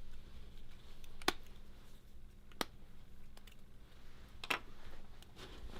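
A few light, sharp clicks and taps, three standing out, from a phone and small parts being handled during a screen repair, over a faint steady low hum.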